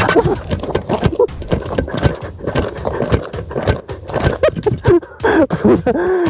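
Quick, irregular thumps of two people hopping with both feet together on an asphalt footpath in a bunny-hop race, mixed with jolting knocks from the moving camera. Short vocal sounds from the hoppers come in near the end.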